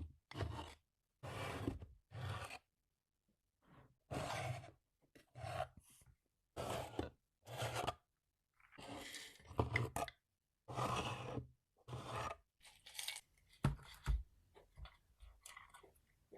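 Dried Chinese medicinal herbs being handled and measured out: a series of about a dozen short, dry rustling and scraping bursts with silent gaps between them.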